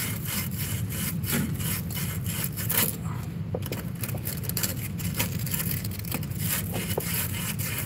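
Sandpaper rubbing back and forth on a copper refrigeration tube at the compressor in quick repeated strokes, cleaning the copper to a shine before it is fluxed and soldered. A steady low hum runs underneath.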